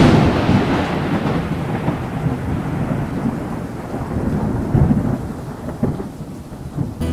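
Thunder: a loud clap at the very start, then a long rolling rumble that slowly fades, with a few short swells in its last seconds.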